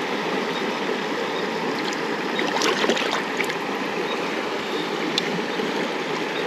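Creek water flowing and rushing steadily, with a short patch of sharper splashes about two and a half to three seconds in.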